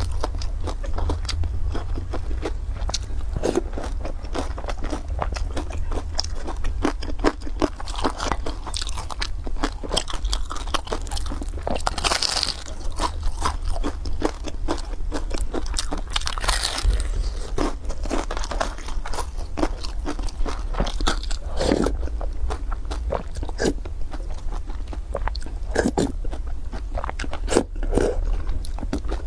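Close-miked biting and chewing of a pan-fried beef pie, a dense run of crunches and mouth clicks, with a few sips of soup from a spoon.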